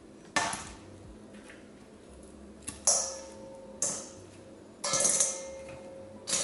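Crispy double-fried, cornstarch-coated chicken wings dropped one at a time into a stainless steel mixing bowl, about five drops, each landing with a crisp crunch and a ringing clank from the metal bowl that fades over about a second.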